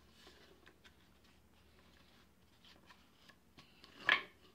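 Cardboard packaging tube being turned over and handled: faint rubbing and small tapping noises, then one short louder rush of noise about four seconds in.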